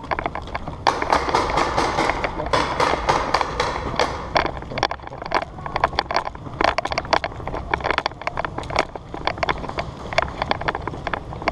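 Airsoft guns firing: a fast run of sharp clicks, like a full-auto burst, from about one to four and a half seconds in, then scattered single shots and cracks.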